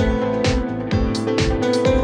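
Background music with a steady beat of about two thumps a second under held notes.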